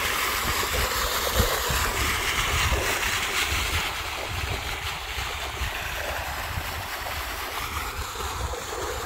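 Steady splash and hiss of a floating pond fountain spraying water, with wind buffeting the microphone. The splashing grows fainter about four seconds in.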